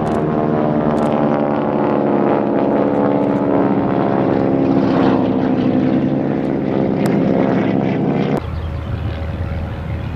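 Propeller plane's piston engine running in flight, a steady drone whose pitch shifts slightly as the plane flies past. About eight seconds in it cuts abruptly to a quieter, rougher sound of a more distant propeller aircraft.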